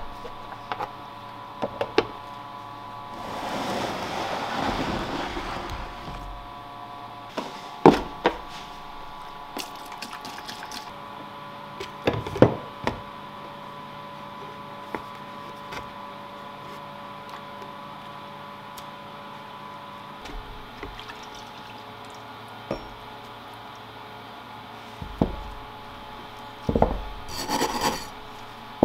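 Liquid sloshing, then scattered clunks and clicks of small rusty axe parts handled against a plastic tub, over a steady hum. Near the end a brass wire brush starts scrubbing the metal.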